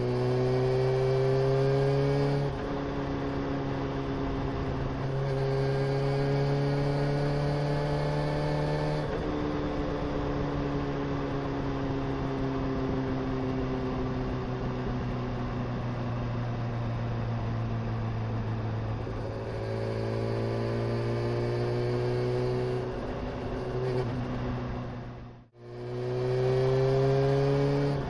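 Honda CBR motorcycle engine under way. The revs climb in steps through the gears in the first seconds, fall slowly in pitch through the middle as it slows, then climb again. The sound cuts out for an instant near the end.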